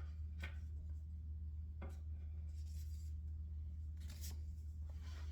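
Objects being handled and packed into a cardboard box: a few short rustles and light knocks, over a steady low hum.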